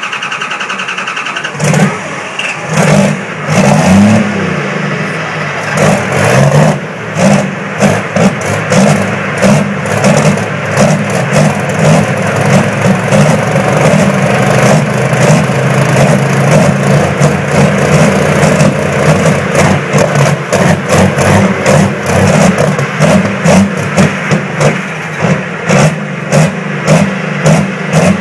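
Diesel engines of John Deere pulling tractors running cold just after start-up, revved again and again in short blips. The blips come faster, about one a second, toward the end.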